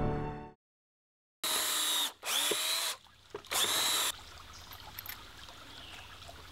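Power drill run in three short bursts, about half a second to a second each, each one spinning up quickly to speed before stopping. The first burst comes after the end of a piece of music.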